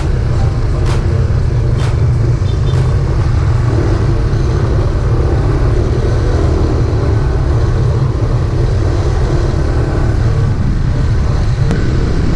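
Motorcycle engine running while riding along in traffic, heard from on the bike with a steady low rumble of wind on the microphone.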